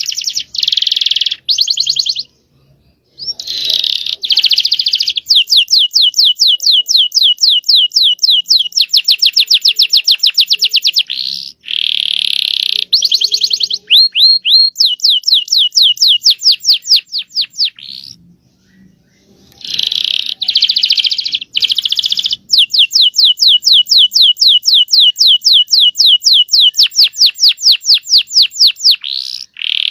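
Domestic canary singing a long rolled song: loud runs of rapid, evenly repeated sweeping notes alternating with dense trills, broken by two short pauses.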